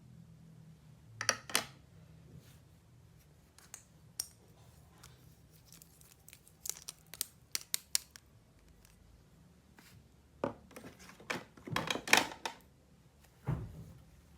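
Toy packaging being opened by hand: irregular clusters of sharp clicks, snips and short crinkles of plastic and cardboard, the busiest stretch near the end.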